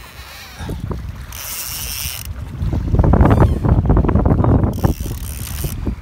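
Fishing reel being cranked with fast, rapid ticking while it hauls a big yellowfin tuna on rod and line. It is loudest in the middle seconds, with wind buffeting the microphone.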